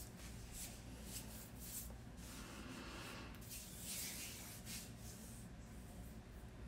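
Faint rubbing and scraping noises, a handful of short hissy scrapes with a longer one around three to four seconds in, over a low steady hum: handling noise on a phone microphone.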